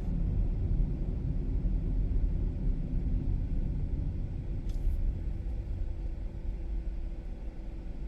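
Car driving, heard from inside the cabin: a steady low rumble of road and engine noise. A brief faint hiss about halfway through.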